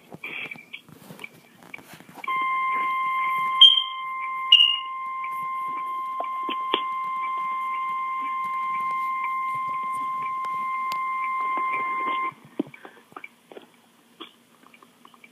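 Emergency Alert System weather warning alarm: the steady single-pitch NOAA Weather Radio 1050-hertz attention tone starts about two seconds in, holds for about ten seconds and cuts off suddenly, with two short high chirps over it near its start. The tone signals that a severe weather warning, here a severe thunderstorm warning, is about to be read.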